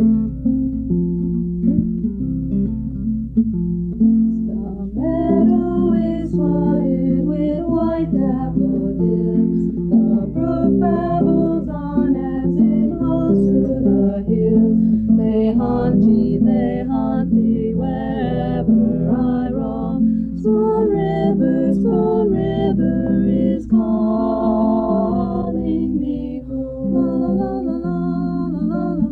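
Music: acoustic guitar playing with a voice singing over it, the singing joining about five seconds in. A steady low hum runs underneath.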